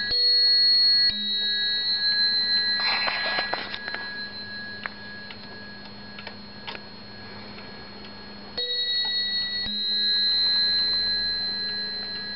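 Dutch Friese tail wall clock striking its bell: single blows about a second apart that ring on and fade, two near the start and two more about two-thirds through. In between, a short rustle and the movement ticking.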